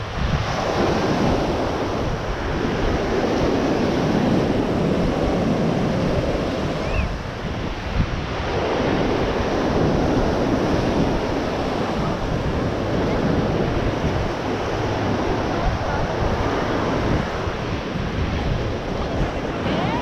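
Ocean surf breaking and washing up the beach, a steady rush that swells and eases, with a dip in the middle. Wind buffets the microphone throughout.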